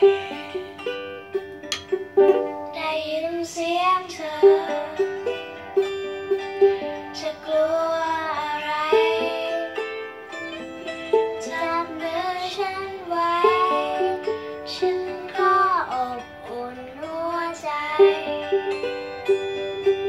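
A young girl singing while strumming chords on a small ukulele.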